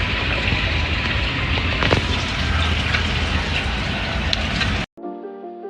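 Steady rush of splashing water, loud and even, with no distinct strokes. Near the end it cuts off abruptly and soft piano music begins.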